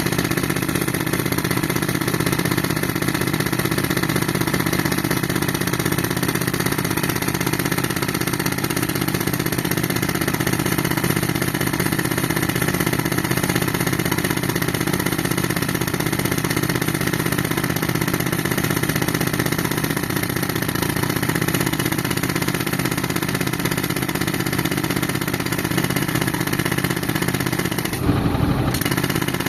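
Tractor engine running steadily at a constant speed, driving an air compressor, with a short change in the sound near the end.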